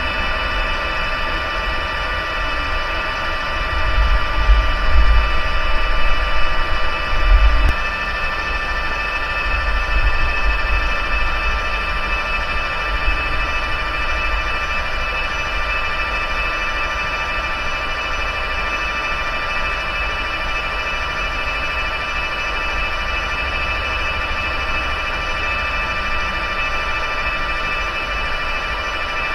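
Metal lathe running, with a steady whine of several high tones from its drive. It is taking a dry facing cut with a high-speed steel tool, and a low rumble swells from about 4 to 8 seconds in and again near 10 seconds.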